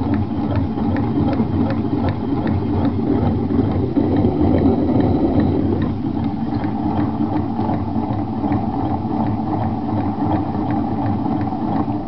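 A 1986 Honda Spree 49 cc two-stroke scooter engine, belt off, turned over by hand, giving a continuous grinding rattle full of rapid small clicks that cuts off suddenly at the end. The owner suspects worn crankshaft bearings and has ruled out the piston, cylinder, belt and rear clutch.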